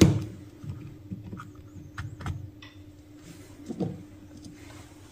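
Plastic parts of an opened Parkside PSSA 4 B2 cordless screwdriver being handled: a sharp knock right at the start, the loudest sound, then lighter clicks and knocks, with one more shortly before the end. A steady low hum runs underneath.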